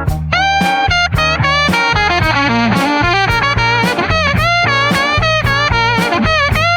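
Instrumental blues break: a lead guitar plays bending, sliding notes over a bass line and a steady drum beat.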